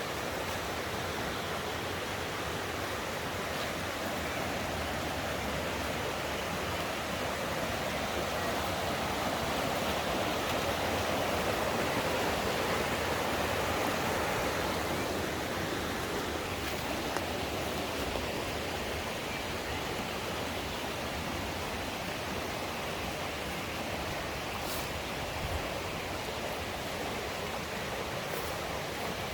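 Mountain stream rushing steadily, swelling a little louder about a third of the way through and then easing back.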